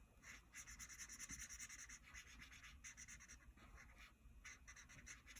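Faint scratching of a marker tip on paper: quick, even back-and-forth colouring strokes filling in an area.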